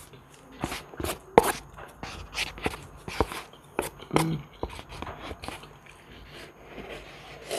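Drinking the last of the broth straight from an instant noodle cup: irregular sips and swallows with small clicks from the mouth and the cup.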